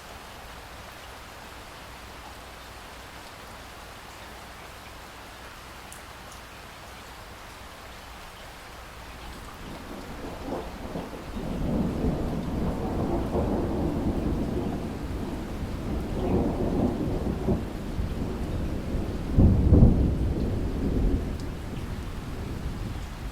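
Steady rain, with thunder rumbling in about halfway through. The thunder swells and eases several times, peaks in its loudest clap near the end, then dies away.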